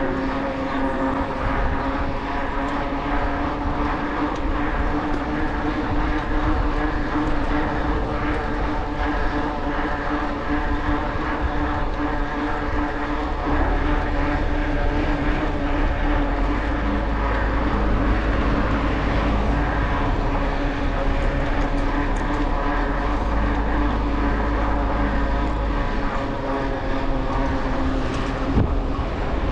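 Steady droning hum with a noisy rush and heavy low wind rumble on the microphone, from riding a bicycle along a path; the rumble grows heavier about halfway through.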